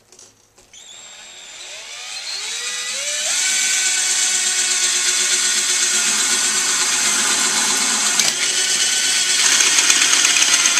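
Cordless drill speeding up over the first few seconds, then running steadily as a 3/8-inch bit bores through the metal dome of a kerosene lamp; the whine gets louder near the end.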